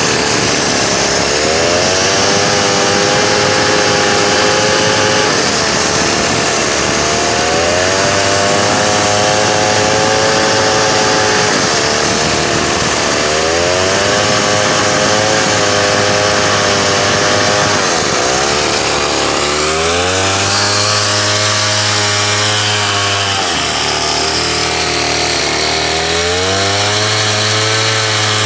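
Large two-stroke chainsaw with a long bar ripping lengthwise through a hard timber log, running at high revs. The engine note sags and climbs back every few seconds as the load in the cut changes, and runs lower from about two-thirds of the way through.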